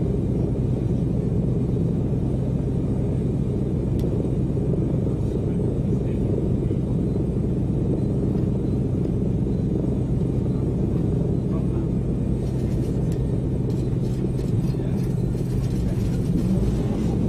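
Lockheed L-1049 Super Constellation's Wright R-3350 radial engines heard from inside the cabin: a steady low rumble of engines running. In the last few seconds, irregular crackling pops come as the engine outside the window is started and catches.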